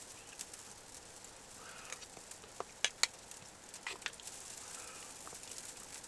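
A few light, sharp clicks of a spoon knocking against a pot or bowl as soup is scooped up to taste, over a faint steady hiss.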